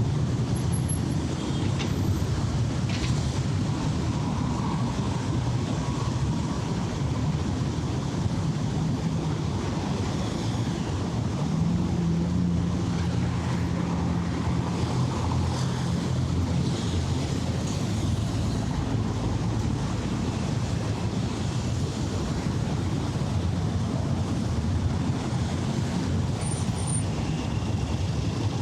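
City traffic noise: a steady low rumble of vehicles with engine hum rising as vehicles pass, loudest a little under halfway through.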